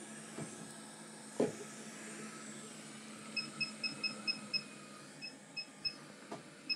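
Hot-air rework station blowing with a steady faint hiss as it is brought in to desolder a chip. Its control gives a run of short high beeps: six quick ones, a pause, three more, then one near the end. A few soft clicks are heard.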